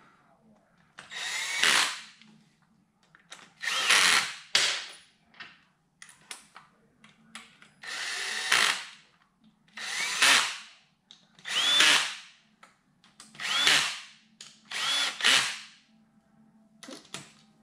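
Cordless drill-driver running in the screws of a Ducati wet-clutch cover in about eight short runs, each opening with a rising whine as the motor spins up.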